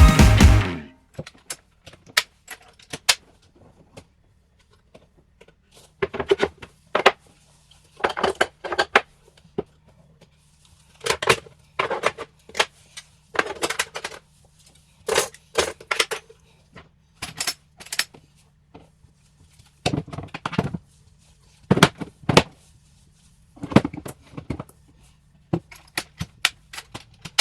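Repeated sharp knocks, clicks and clinks of hard objects being handled and set down against wood, in irregular clusters, with a faint low hum underneath from about six seconds in. Background music fades out at the very start.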